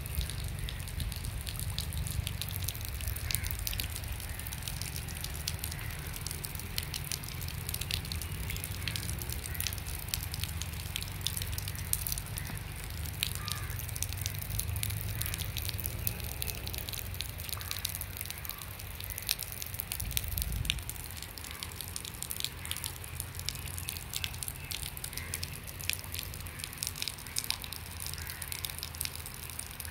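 Light rain pattering, a dense irregular ticking of drops, over a low rumble.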